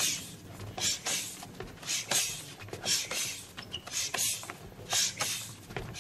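Two karateka exchanging strikes and blocks at close quarters: a short hissing burst about once a second, from sharp breaths and gi sleeves swishing, with a few light slaps between.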